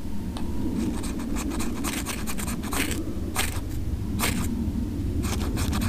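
Ferro rod struck against the flat spine of a bushcraft knife to throw sparks onto fatwood shavings. It gives a series of quick, sharp scrapes, some single and some in fast clusters.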